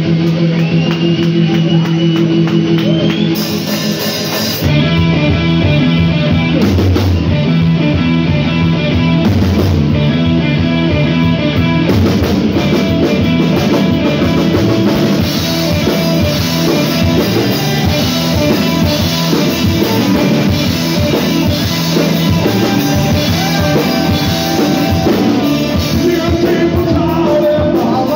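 Live rock band playing on stage: a few seconds of held electric guitar and bass notes, then the drums and full band come in together about four and a half seconds in and play on loudly.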